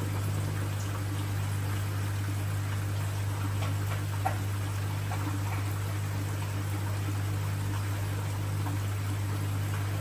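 Saltwater aquarium's filtration: water trickling and running over a steady low pump hum, with a few faint drips about four seconds in.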